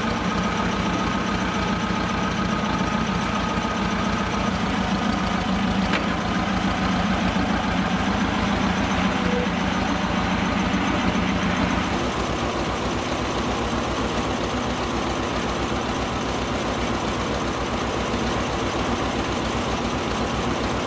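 The D-21 two-cylinder air-cooled diesel of a homemade tractor running steadily at idle with a regular low beat. About twelve seconds in, its sound changes and gets slightly quieter.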